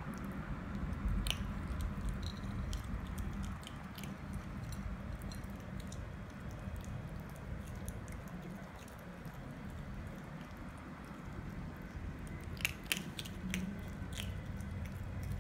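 Otter pup chewing dry kibble pellets held in its front paws, wet smacking and mushing with sharp crunches, a quick run of louder crunches near the end.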